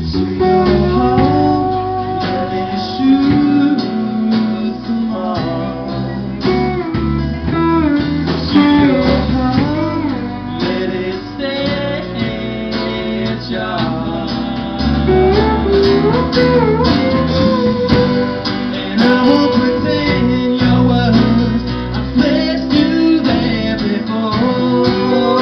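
Small live band playing a song: strummed acoustic guitar with electric guitar, bass guitar and drums, and a man singing over it.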